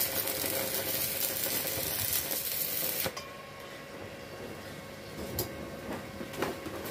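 Stick (arc) welding on steel: the arc crackling and sizzling steadily, louder for about the first three seconds, then quieter.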